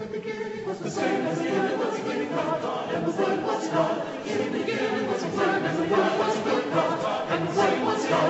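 A choir singing, many voices together, growing a little louder about a second in.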